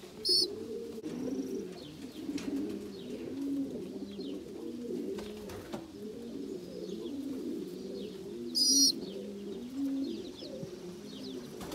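White racing pigeons cooing steadily, several voices overlapping in a low warbling drone. Two brief high-pitched squeaks cut in, one about a third of a second in and a louder one near nine seconds.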